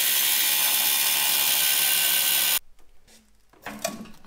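Angle grinder with a cutting disc cutting through a steel bolt welded to the car's body, a loud, steady, harsh noise that cuts off suddenly about two and a half seconds in. A few faint knocks follow near the end.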